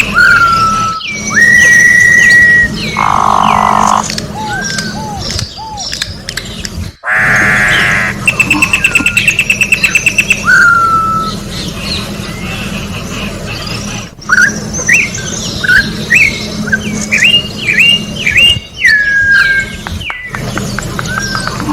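Campo troupial (corrupião) singing: loud, clear whistled notes and short rising and falling slurs, with two harsher, noisier calls a few seconds in and a run of quick whistled notes later on. A fast pulsing trill sounds in the background about nine seconds in, over a steady low hum.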